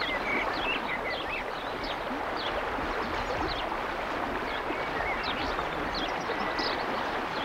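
River water rushing steadily over shallow gravel riffles, with short high bird chirps now and then.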